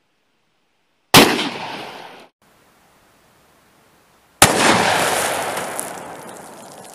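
Two shots from a Glock 20 10mm pistol, about three seconds apart, each a sharp crack trailing off in echo. The first is cut short; the second rings out for about two seconds.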